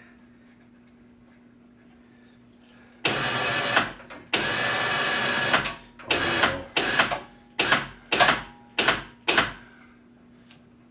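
Electric winch on a Polaris utility vehicle, run in starts and stops to wind its new synthetic rope in tight. After about three quiet seconds come two runs of about a second each, then several short bursts, each dying away in a falling whine as the motor stops.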